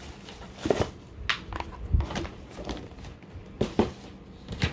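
Handling noise: a string of sharp knocks and taps, with a low thump about two seconds in, as items from an unboxing are picked up and set down.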